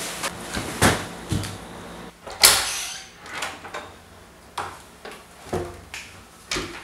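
Thumps and bumps of a person tumbling off a bed, the loudest a rustling thud about two and a half seconds in, then several sharp clicks of an interior door's knob and latch as the door is opened.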